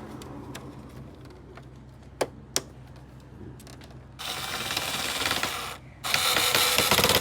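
Two sharp clicks, then two bursts of rapid mechanical ratcheting, the first about a second and a half long and the second about a second long.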